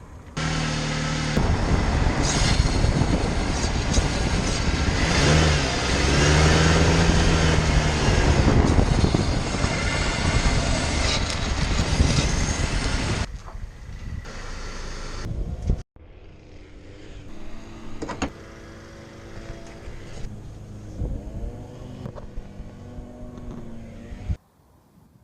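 Dodge Caliber running and moving, with loud engine and road noise. A cut about two-thirds of the way in leads to a quieter stretch of the same.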